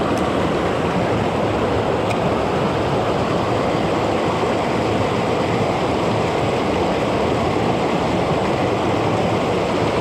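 Mountain river water rushing over rapids, a steady, loud wash.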